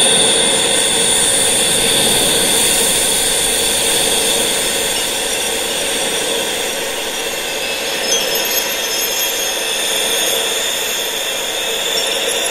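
Steady wind noise, an even rushing hiss with a few high, sustained tones running through it and a few faint ticks about eight seconds in.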